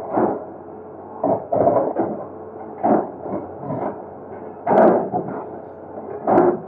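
Excavator working on a bridge's concrete: a series of irregular knocks and thuds, the loudest a little under five seconds in, over the steady hum of the running machine.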